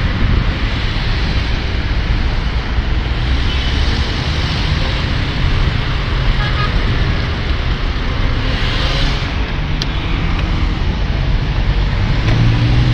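Road traffic: cars idling in a queue and driving past, a steady mix of engine and tyre noise, with one car's engine coming up louder near the end.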